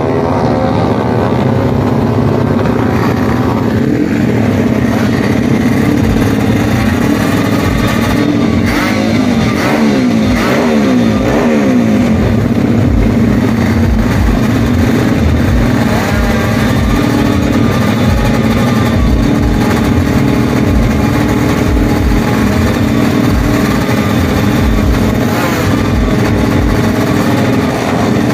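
Several drag-racing motorcycle engines running at the start line, a loud continuous mix of engines with repeated revs rising and falling over one another.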